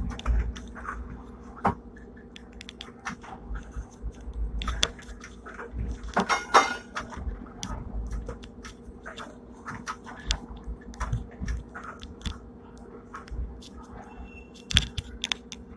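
Hong Kong tram No. 120, a retro fifth-generation double-decker, running along the track, heard from inside: many irregular clicks, knocks and rattles, thickest about six seconds in, over a low rumble and a steady hum.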